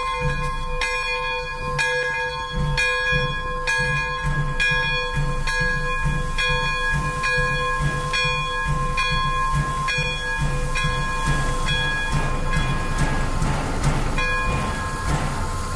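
Locomotive bell of Pere Marquette 1225, a Lima-built 2-8-4 Berkshire steam engine, ringing steadily about once a second, with a low uneven pulsing from the engine underneath. The ringing stops about three-quarters of the way in, one last strike follows, and a steam hiss rises near the end.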